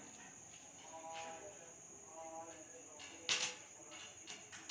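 Stick-welding arc being struck with an RD 260 electrode at about 80 amps: a sharp crackling burst about three seconds in, then a few shorter crackles near the end as the arc catches.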